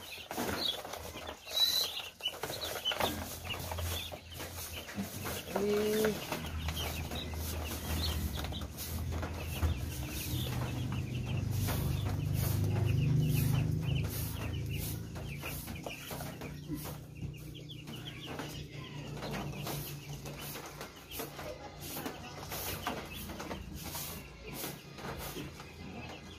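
A box of young broiler chicks peeping, while a stick broom and a flat scraper sweep and scrape their cardboard floor in short scratchy strokes. A low hum swells in the middle and then fades.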